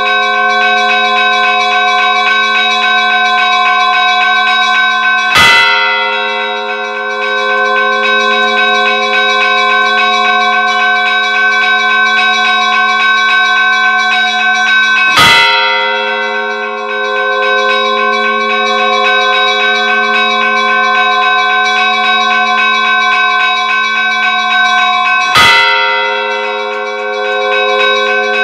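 Church bells ringing: smaller bells sound continuously in quick strokes, and a big bell is struck three times, about ten seconds apart, each stroke the loudest sound.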